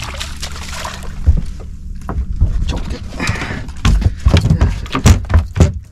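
A hooked striped bass splashing at the water's surface beside a boat, then a run of sharp knocks and thumps as the fish is brought aboard and flops on the deck.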